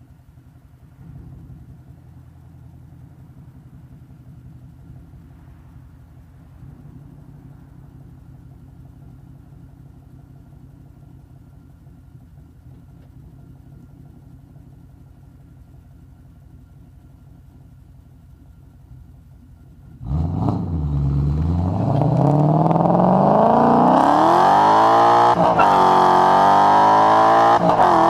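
Ford Mustang GT's 5.0-litre V8 idling with a low, steady rumble through an aftermarket JBA axle-back exhaust with cat deletes and an X-pipe, then launched at wide-open throttle about two-thirds of the way in. The revs climb hard and loud, drop sharply at a quick upshift and climb again, with another shift right at the end.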